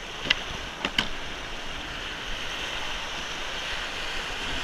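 Small surf washing up the beach around a grounded plastic kayak, with wind buffeting the microphone. A few sharp clicks in the first second, from hands on the kayak's deck fittings.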